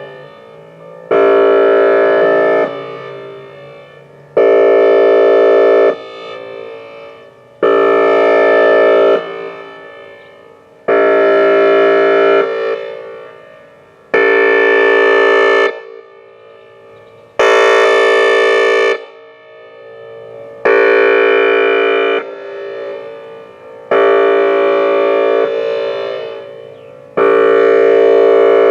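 Whelen Vortex R4 electronic outdoor warning siren sounding a steady multi-tone chord. The sound comes on sharply about every three seconds, holds for about a second and a half, then drops and fades away before the next blast.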